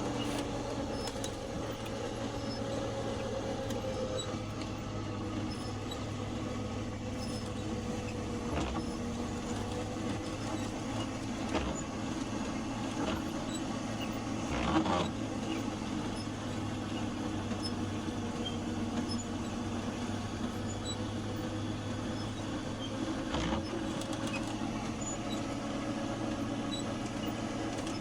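Plow truck engine running steadily, a low even hum, with a few short knocks now and then.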